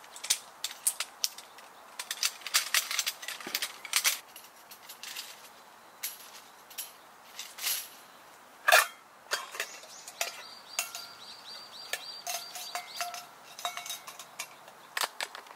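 Folding metal camp hanger rack (Mountain River Indian hanger) being unfolded and set up on a table: a run of clicks, clinks and knocks as its poles are opened and locked, with one sharper knock about nine seconds in. Near the end, light clinks as items are hung on its hooks.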